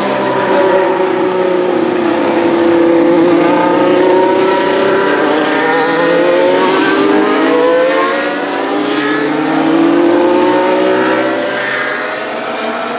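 2025 Formula 1 cars' turbocharged V6 hybrid engines running at speed. More than one engine note overlaps, and their pitch sweeps down and back up several times.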